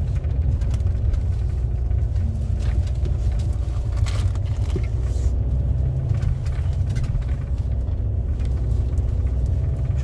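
Car driving slowly up a narrow paved mountain road, heard from inside the cabin: a steady low rumble of engine and tyre noise.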